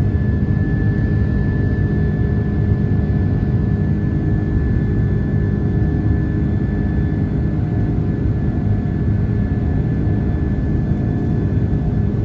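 Jet airliner engines running with a steady drone: an unchanging low rumble with a few steady tones over it.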